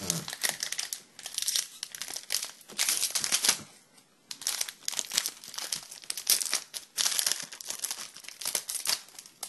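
Hockey card pack wrapper being crinkled and torn open by hand: a dense run of sharp crackles, with a short pause about four seconds in.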